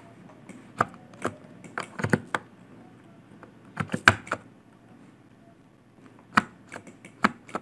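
Computer mouse and keyboard clicking: about a dozen sharp, irregular clicks, some in quick little clusters, over a quiet room background.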